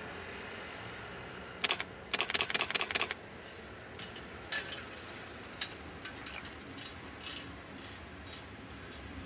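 Camera shutters clicking: one short burst, then a rapid run of clicks lasting about a second, followed by scattered lighter clicks, over a faint steady rumble.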